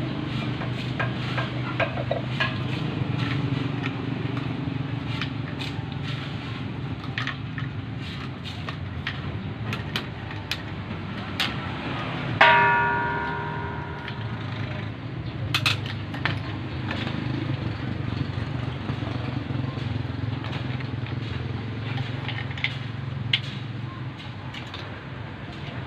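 Scattered light clicks and knocks of plastic pipe fittings and tools being handled, over a steady low hum. About twelve seconds in, one loud metallic clang rings out and fades over a second or so.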